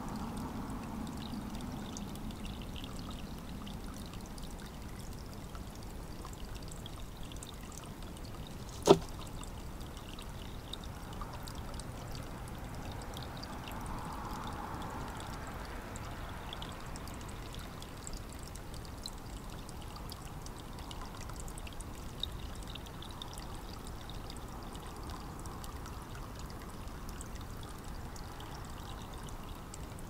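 Steady trickle of running water, with one sharp knock about nine seconds in and a fainter tick about thirteen seconds later.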